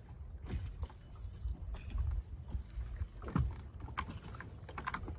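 Water lapping against the hull of a small fishing boat, with a low, uneven rumble of wind on the microphone and scattered faint ticks.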